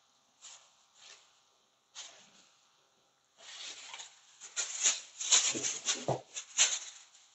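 A plastic bag crinkling and rustling in irregular bursts, a few scattered crackles at first and then a dense, louder run of crinkling over the second half.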